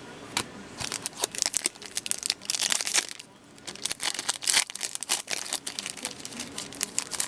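Trading-card pack wrapper crinkling and tearing as a pack is opened and the cards are handled: a dense run of sharp crackles and rustles, busiest in the middle.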